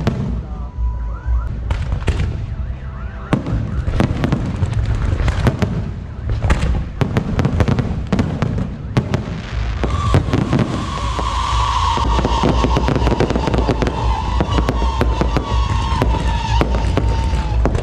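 Dense fireworks barrage: rapid bangs and crackling over a deep continuous rumble. It grows louder and thicker about ten seconds in, when a high whistle starts and slowly falls in pitch.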